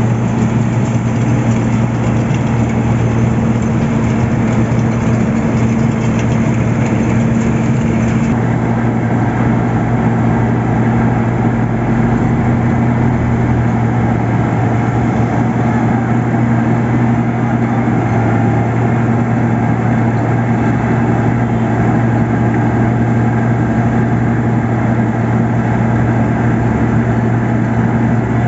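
Heavy diesel engine of road construction machinery running steadily, with a constant low hum. About eight seconds in, the higher hiss above it drops away.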